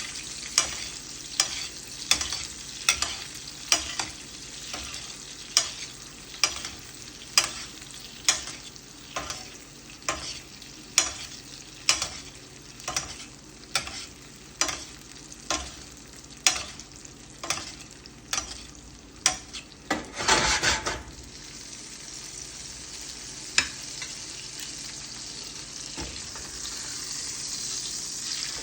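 Ribeye steak sizzling in a frying pan while a utensil clicks against the pan about once a second. About twenty seconds in there is a louder hiss lasting about a second, after which the clicks stop and only the steady sizzle goes on, growing slightly louder.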